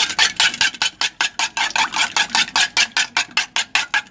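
An egg being beaten in a bowl, the utensil striking the bowl in a fast, even rhythm of about five or six strokes a second.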